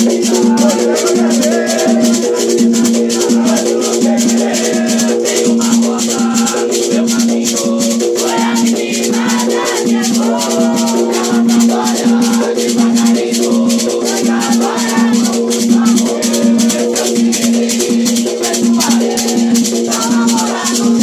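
Afro-Brazilian ritual music: atabaque hand drums beaten in a fast, steady rhythm with a rattling shaker, over a steady hum, and a ponto being sung in places, most clearly around the middle and near the end.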